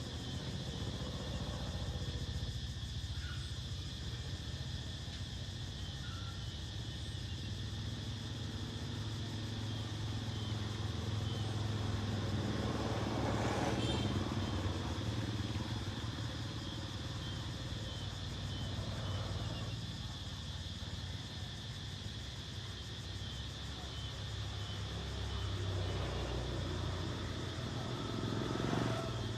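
Motor vehicle traffic on a road: a steady low engine rumble, with a vehicle passing close about halfway through and another near the end. A steady high-pitched drone runs underneath.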